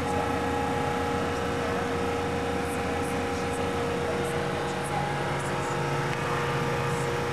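Steady background drone of engines with a constant hum, even in level throughout.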